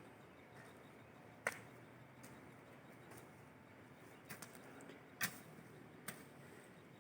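A hiker's footsteps on a steep dirt trail: a few sharp, irregular clicks and snaps over a faint steady background hiss.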